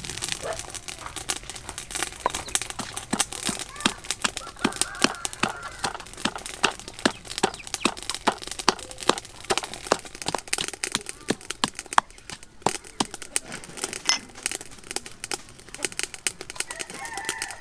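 Wooden pestle pounding garlic and chilli in a wooden mortar: a run of hard knocks, about two a second, that stops about two-thirds of the way through.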